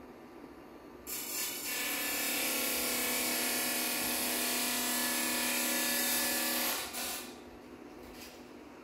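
Small handheld electric motor device buzzing at a steady pitch with a harsh hiss, used as a sound instrument. It switches on about a second in, runs for nearly six seconds, cuts off, then buzzes again briefly.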